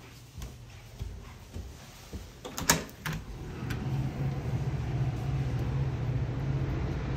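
Footsteps on stairs, then a door latch clicking sharply and the door opening about two and a half seconds in. After that, a steady low rumble of wind on the microphone.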